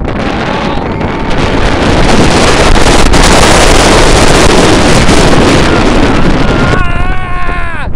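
Roller coaster in motion: wind rushing over the microphone with the mine-train cars rumbling along the steel track, swelling louder about a second and a half in. Near the end a rider lets out one long yell that falls in pitch.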